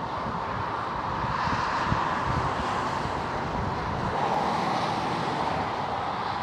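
Steady tyre and engine noise of fast motorway traffic passing below, swelling gently as cars go by, with wind buffeting the microphone.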